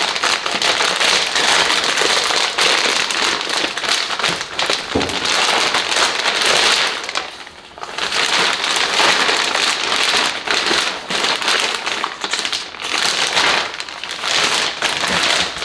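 Large plastic bag crinkling and crackling continuously as it is handled and pulled off a fan shroud, with a brief lull about seven and a half seconds in.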